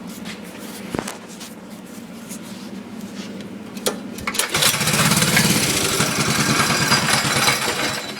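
Briggs & Stratton 900 series 205cc single-cylinder engine being started. After a few clicks it catches about four and a half seconds in and runs loudly with a rapid, even beat, easing off at the very end.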